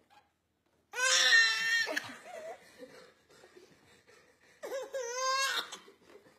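An infant crying out in two short, high-pitched wails, one about a second in and one near the end, with faint whimpers between them.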